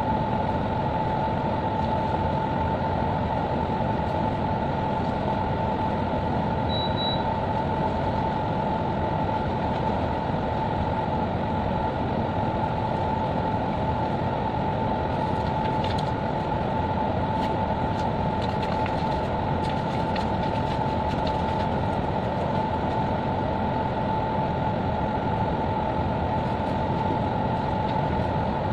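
Steady drone of a ship's machinery and ventilation, with a constant whine on top.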